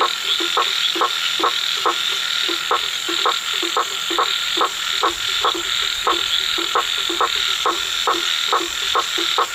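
A frog calling at night: short croaks repeated steadily, about two to three a second.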